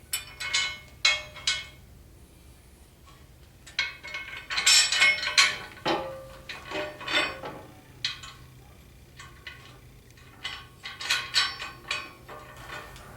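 Steel bolts and small metal parts clinking and rattling as they are handled, in several separate bursts of sharp ringing clinks, over a faint steady hum.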